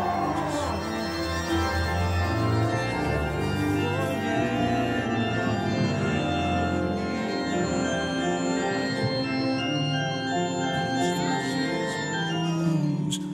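Background music of sustained organ chords.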